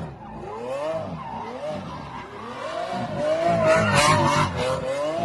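Lamborghini Aventador's V12 revving while its tyres squeal as the car spins donuts. The squeal wavers up and down in pitch and is loudest about four seconds in.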